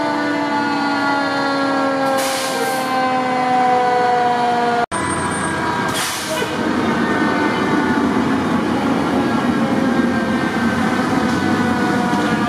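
A fire engine's mechanical siren winds down in a long, slowly falling tone, with a short hiss of air like an air-brake release. About five seconds in, it cuts to the loud, steady drone of another fire truck as it approaches.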